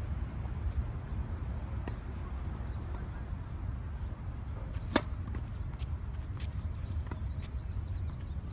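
Tennis serve: a racket swishes through the air and strikes the ball with one sharp pop about five seconds in, with a few fainter ticks after it, over a steady low rumble.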